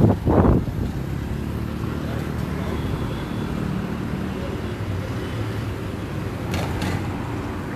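Steady low rumble of motor vehicles running, with a brief loud bump a fraction of a second in.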